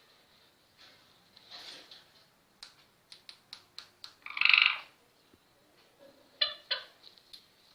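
Parrot making a quick run of sharp clicks, then one loud harsh squawk about halfway through, followed by two short calls near the end.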